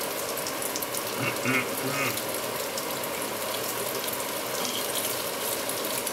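Smoked bacon strips sizzling steadily in a hot frying pan, with fat spitting in small crackles and a fork clinking and scraping as it turns the strips. A brief pitched sound comes in about a second and a half in.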